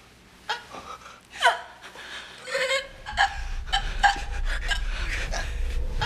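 A woman gasping and choking in short, strained breaths and cries during a convulsive fit. A low rumbling drone sets in about three seconds in beneath the gasps.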